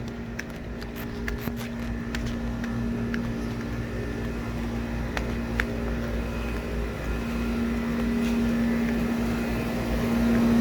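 Goodman air-conditioner condensing units running: a steady hum with fan noise that grows louder over the last few seconds. A few footsteps click in the first seconds.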